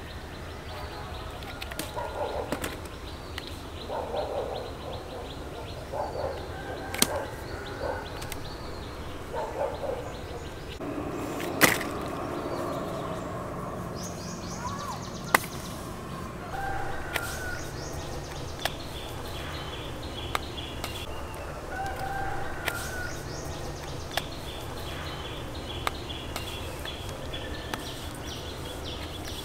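Chickens clucking, with small birds chirping and several sharp clicks or snaps, the loudest about halfway through.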